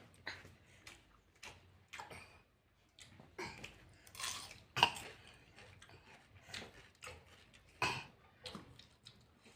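Close-miked eating of rice and fried vegetables: irregular wet chewing and lip-smacking noises, a few of them sharper and louder than the rest.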